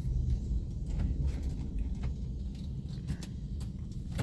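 Low, steady rumble of a car heard from inside its cabin, with a few faint clicks.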